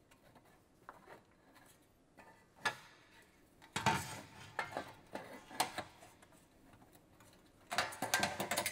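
Sheet-metal louver frame profiles and corner pieces being handled and fitted together by hand: scattered light metallic clinks, knocks and rubs, busier near the end.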